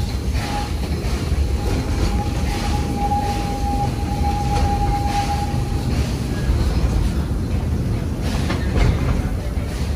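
Narrow-gauge steam train running, heard from aboard a passenger car: a steady low rumble with clicking of wheels over rail joints. A thin, steady squeal of wheels on the rail runs from about half a second in to about six seconds in.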